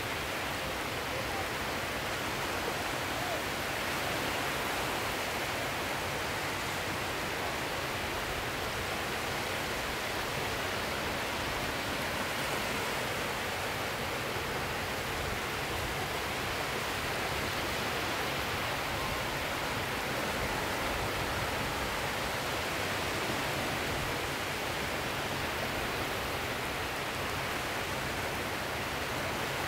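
Sea surf heard as a steady, even rush, with no single breaking waves standing out and no music.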